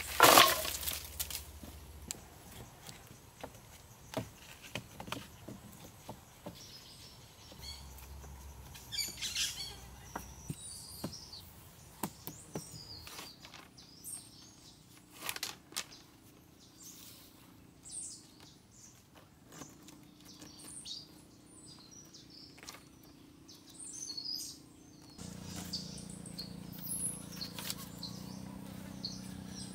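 A bundle of cut wooden poles dropped on the ground with a loud clattering thud at the start. Then small knocks and rustles of poles and cord being handled while they are lashed together, and birds chirping repeatedly through the second half.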